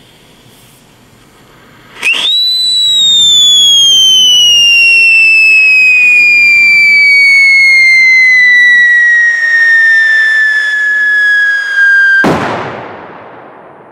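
Pyrotechnic whistle from a smoke-pouring firework tube, starting loudly about two seconds in and falling slowly in pitch for about ten seconds. It ends in a single loud bang about twelve seconds in, which dies away over the last second or so.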